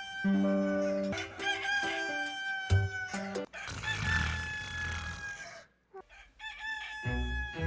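Sound Ideas stock rooster sound effect: a rooster crowing, with long held calls that sag slightly in pitch, repeated about four times across quick cuts. Light music plays under some of the crows.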